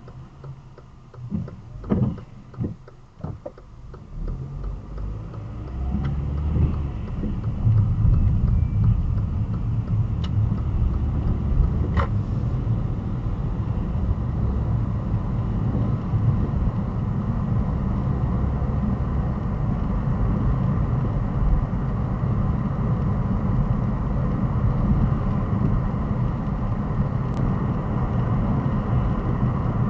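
Car pulling away from a standstill and driving on a wet road, heard from inside the car. About six seconds in, engine and tyre noise rise, then hold at a steady rumble with tyre hiss.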